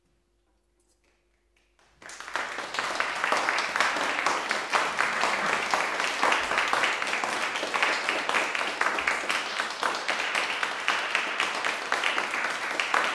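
Near silence, then about two seconds in an audience breaks into applause, many hands clapping steadily.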